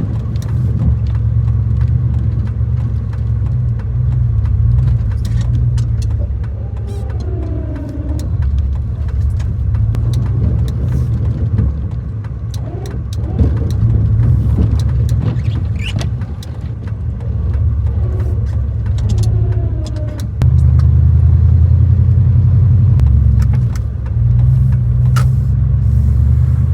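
Gasoline three-quarter-ton pickup truck running with a heavy low rumble while plowing snow, its engine note rising and falling with a few clicks and knocks, and getting louder about twenty seconds in.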